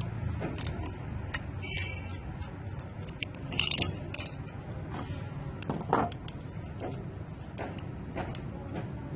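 Irregular small clicks and taps of hard parts being handled, over a steady low hum. A few taps stand out, about two seconds in, near the middle and about six seconds in.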